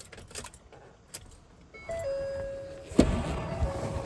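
Keys jangling and small clicks, then about two seconds in a steady electronic tone from the pickup's dash that steps down in pitch. About a second later the truck's radio comes on suddenly and loud as the ignition is switched on.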